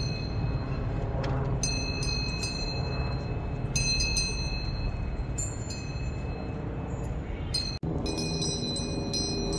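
Goat bells clanking irregularly in bursts of metallic, ringing strikes, over a steady low rushing background. There is a brief sudden dropout near the end.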